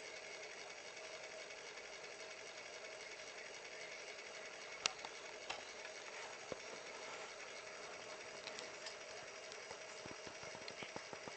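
Steady whir of a small motor, with a held tone under it. A sharp click about five seconds in, two fainter ones soon after, and a run of small clicks near the end.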